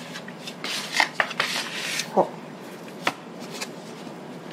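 Shaped sourdough dough being turned over into a floured linen-lined proofing basket and pressed in by hand, with a plastic dough scraper on the table: soft rubbing and brushing with a few light clicks and knocks, and a brief falling tone about two seconds in.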